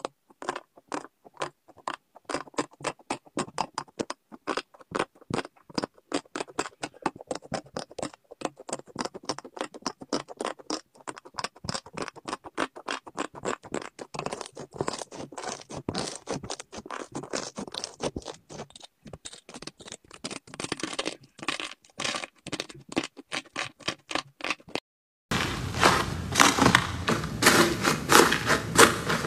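Slime being squeezed and pressed by hand, giving rapid clicking and crackling pops. After a brief gap near the end the crackling comes back louder and denser.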